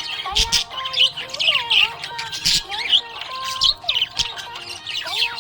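Budgies chirping and squawking rapidly and continuously, with a melody playing underneath.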